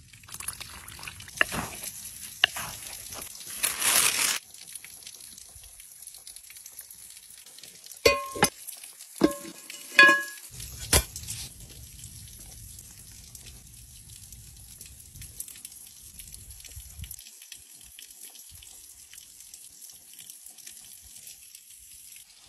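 Hand food-preparation sounds: dough being worked in a clay bowl and oil poured from a small glass bottle. A burst of rustling comes about four seconds in, and four sharp clinks that ring briefly come around eight to ten seconds in.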